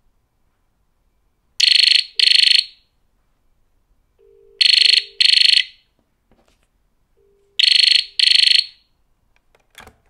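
GPO 776 rotary dial telephone ringing for an incoming call in the British double-ring pattern: three pairs of short rings about three seconds apart. Just before the end, a clunk as the handset is lifted off the cradle.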